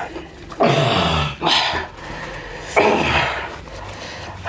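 A person coughing and gagging hard in three loud, harsh fits, choking on the burn of a hot chili pepper swallowed whole.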